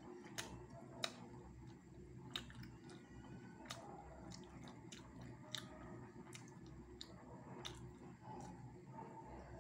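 Faint chewing of food, with soft mouth clicks coming irregularly every half second to a second.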